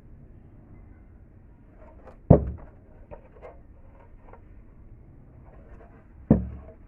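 Two sharp knocks about four seconds apart, the first a little over two seconds in, with lighter clicks and taps between them.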